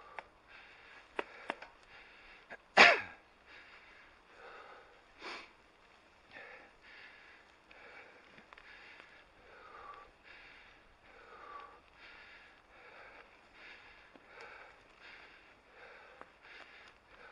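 A mountain biker's rhythmic breathing right at a helmet-mounted camera, short puffs about one a second. A few sharp clicks in the first seconds and one loud knock about three seconds in.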